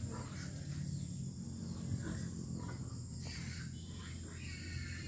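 Quiet outdoor ambience: faint insect and bird calls over a low steady hum, with a few soft knocks.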